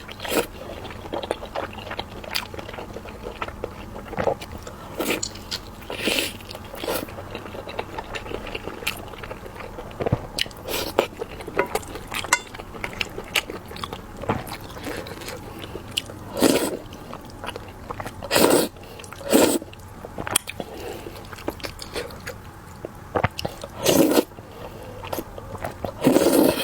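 Close-miked eating: chewing and biting food, with many small wet mouth clicks and a handful of louder mouth sounds scattered through.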